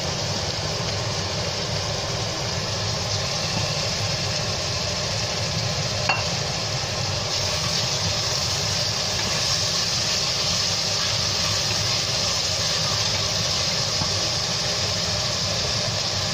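Chopped red capsicum and onions sizzling in hot oil in a stainless steel pot, stirred with a wooden spatula, over a steady low hum. A single sharp tap comes about six seconds in.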